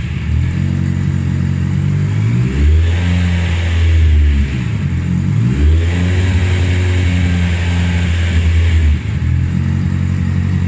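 Honda CB650F inline-four through a genuine Two Brothers slip-on exhaust, idling and blipped up twice: a short rev about two and a half seconds in, then a longer held rev from about five and a half to nine seconds in, each dropping back to idle. The exhaust note is loud and raw.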